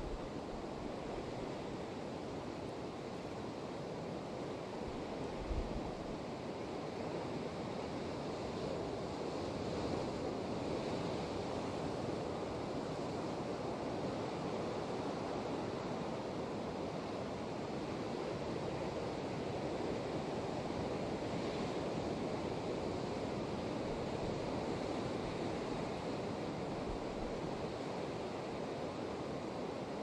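Ocean surf breaking on rocks at the foot of a cliff, a steady wash that swells and eases gently. A brief low buffet of wind on the microphone comes about five seconds in.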